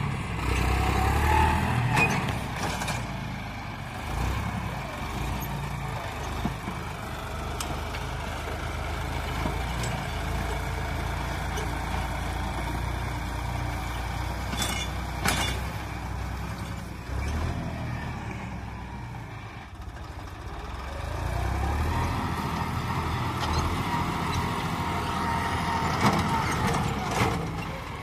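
John Deere tractor's diesel engine running steadily under load as it drags a disc harrow through the soil, with a few sharp knocks.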